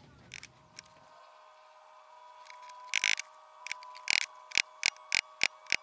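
A hammer tapping a steel center punch to mark hole positions through a paper template: sharp metallic taps starting about halfway through, coming about three a second.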